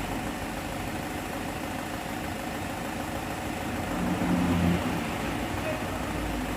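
A vehicle engine idling steadily, with a brief swell in level for under a second about four seconds in.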